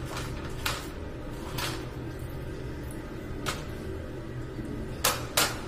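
Sharp clacks and knocks of hard fittings being handled as a wall-hung ceramic toilet and its seat hinge are taken apart: a few single knocks, then two close together near the end, over a steady low hum.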